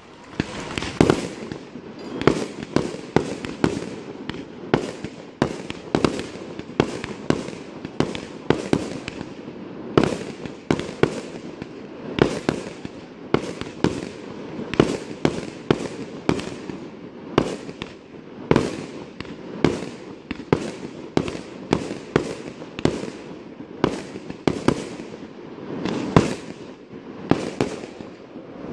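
Aerial firework shells bursting in quick succession, about two or three sharp bangs a second, each with a short echoing tail.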